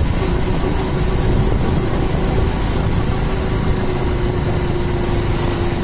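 Motorcycle engine running steadily at low speed, a low rumble with a steady hum.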